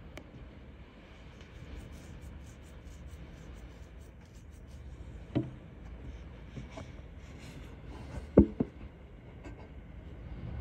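Wind buffeting the phone's microphone as a steady low rumble, with two sharp thumps, the louder one about eight seconds in.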